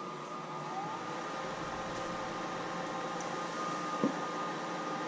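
Replacement draft inducer motor and fan on a Clare Brothers gas furnace running steadily just after start-up: a steady whine over a rush of air, with a faint tone still climbing in pitch in the first second. A single click comes about four seconds in.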